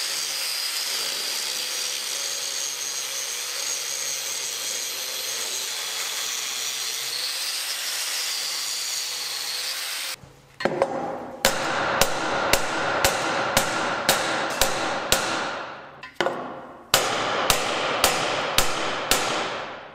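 An angle grinder grinds steadily through a weld for about ten seconds, then stops. After a brief pause a hammer strikes a chisel on steel about twice a second, with the metal ringing between blows, pausing once before a second run of strikes, to drive out a worn auger shaft bushing.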